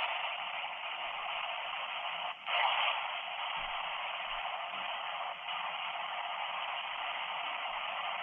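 Radio static from an S-Box ghost box sweeping through stations, played back through a Nokia flip phone's small speaker as a thin, steady hiss. It dips briefly about two seconds in, then comes back louder for a moment.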